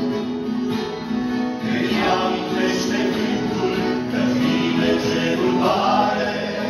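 Male vocal group singing a gospel song in harmony, accompanied by acoustic guitar and accordion.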